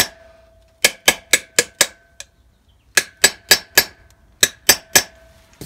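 Hammer tapping a drift to drive a new grease seal into a 1971 VW Beetle front brake drum's hub: sharp metal strikes in short runs of three to five, about four a second, with a ringing tone hanging on after each run.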